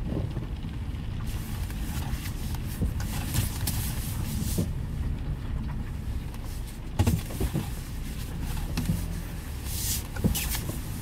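Rain on a car's roof and windshield, heard from inside the cabin, over a steady low rumble, with scattered sharp taps that come loudest about seven and ten seconds in.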